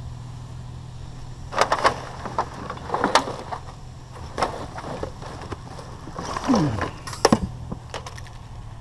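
Knocks and clatter of scrap being handled, a computer monitor picked up and loaded, with two sharp knocks near the end. A steady low hum runs underneath.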